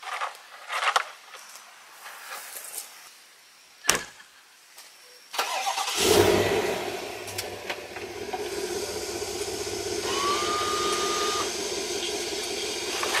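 A few light clicks and knocks, then a car engine starts about five seconds in and settles into a steady idle. A short tone glides up and holds briefly near the end.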